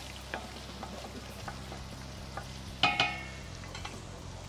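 A spoon stirring tortellini in a stainless-steel pot of boiling water, with a few light taps against the pot. A single loud, ringing clink comes about three seconds in.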